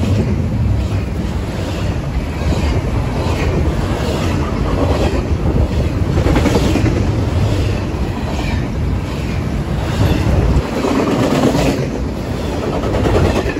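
Double-stack intermodal well cars rolling past: a steady heavy rumble of steel wheels on rail, with repeated clacks as the wheels pass over the rail.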